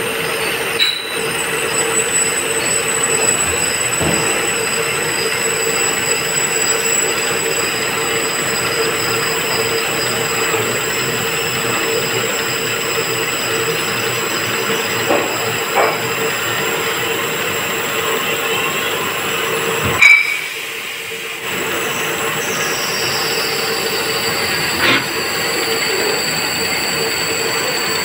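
Vertical machining centre drilling a hole in a copper part with a twist drill: a steady machine whine with several high tones held level. About twenty seconds in a sharp click is followed by a brief dip in the noise, after which a high tone slides down and settles.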